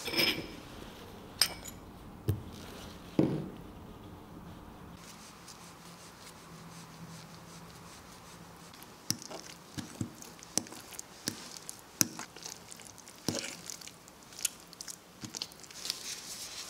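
A fork stirring melted butter into sticky steamed glutinous rice dough: wet, sticky squelching with sharp clicks, coming thick and fast over the second half. A few separate clinks and knocks in the first few seconds.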